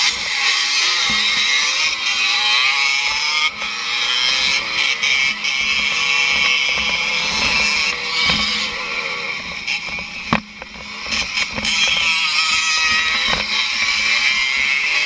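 Small two-stroke motorcycle engines revving hard at a race start, the rider's own engine buzzing close to the camera and rising in pitch as it accelerates away. About ten seconds in the engine sound briefly drops off, with a few sharp knocks from the bike over the rough ground.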